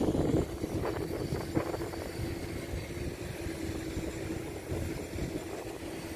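A steady engine drone, one held tone, over a low uneven rumble, with a couple of short knocks in the first two seconds.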